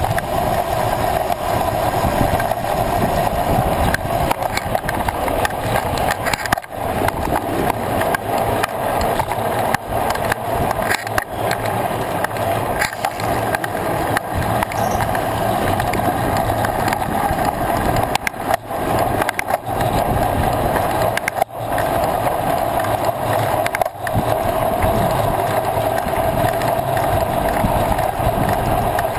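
Steady rolling and rushing noise of a mountain bike ridden on asphalt, picked up by a camera riding along on the bike or rider, with a few short dips in level.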